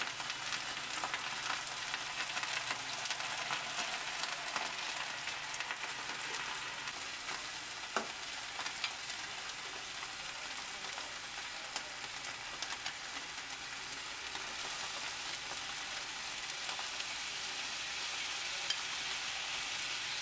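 Flounder fillets frying in oil in a nonstick pan: a steady sizzle with fine crackling, and one sharper tick about eight seconds in.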